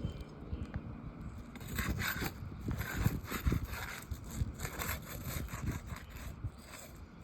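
Asphalt roof shingles being scraped and rubbed as a flat tool is worked under them, in irregular strokes.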